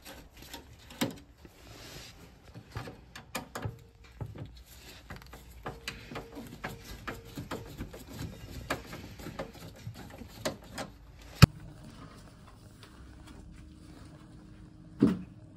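Long screwdriver working the screws out of the underside of a combi boiler's case: a run of small irregular clicks and scrapes, then one sharp click about eleven seconds in and a louder knock near the end.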